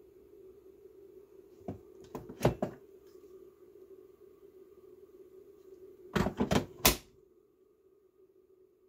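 Hard plastic clunks and clicks as a Ryobi P102 18V battery pack is pulled off a Ryobi P117 charger about two seconds in, then slid back on and latched, in a louder cluster of knocks, about six seconds in.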